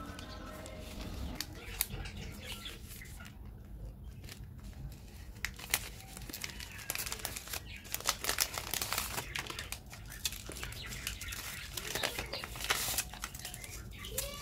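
Chocolate-bar wrapper being torn open and unwrapped by hand: the plastic outer pack of a Cadbury Dairy Milk Silk Bubbly bar and its crumpled gold foil inner wrap crinkle and tear in irregular crackles, with a short lull about three seconds in.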